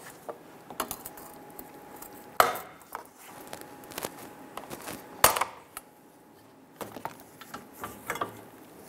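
Light clicks and scraping of a pry tool working drilled-out rivets loose from the metal flange of a plastic fuel filler neck cover, with two sharper knocks about two and a half and five seconds in.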